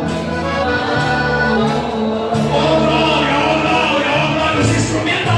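Live worship music: a band playing a held, shifting bass line under singing voices.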